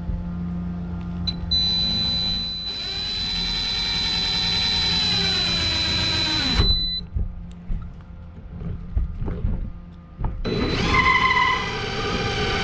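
Electric drill running in two long bursts, its whine sagging in pitch and recovering as it bites, the sound of cutting a hole through the plastic tank wall for a bulkhead fitting.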